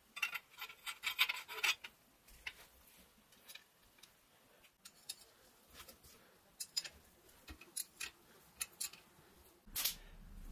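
Small handling sounds of hand tools and metal parts on a workbench: a run of scrapes and clicks in the first two seconds, scattered light ticks, and a louder brief scrape near the end.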